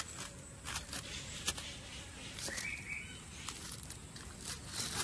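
Wood fire crackling under banana-leaf-wrapped fish on the grill: scattered sharp crackles and pops over a faint outdoor background.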